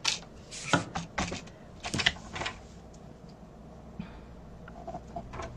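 A paper trimmer being set down and a sheet of paper laid and squared on it: several light knocks and taps over the first two and a half seconds, then quieter handling.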